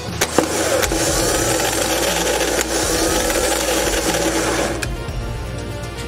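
A car starter motor running free on the bench, switched by the ignition key. It engages with a sharp click, spins with a steady whirr for about four and a half seconds, then stops abruptly.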